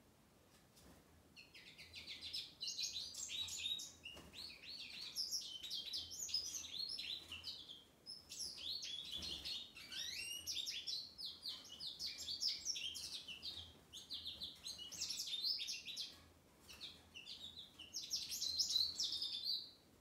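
Male American goldfinch singing: a long run of rapid, high twittering notes in several phrases with short pauses between them, starting about a second and a half in.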